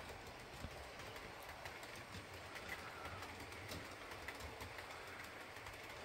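Faint running of an OO gauge Class 43 model train as it rolls slowly over pointwork, a steady low noise with a few small scattered clicks.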